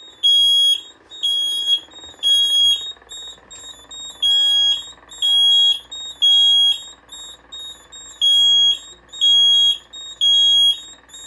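Fire alarm piezo sounder on a duct detector's test key switch, sounding in alarm after the detector's test button was pressed. It gives a loud, high-pitched beep in groups of three with a longer pause between groups, the temporal-3 evacuation pattern, about four groups in all.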